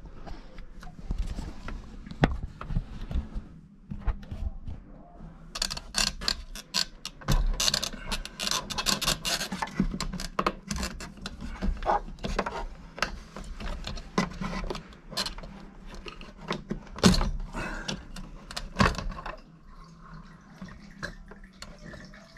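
In-tank fuel pump assembly being worked out of a car's fuel tank by hand: repeated plastic clicks, knocks and scraping as it is wriggled up through the tight tank opening, busiest in the middle with one louder knock. It goes quieter near the end as the assembly comes clear, with faint sounds of fuel beginning to drain out of it.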